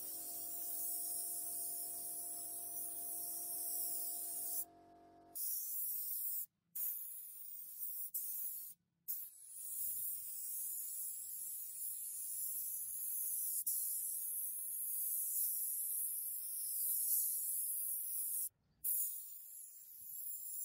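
Suction-feed paint spray gun hissing steadily as it sprays paint, cutting out abruptly a few times. For the first few seconds a steady hum with several tones runs beneath the hiss.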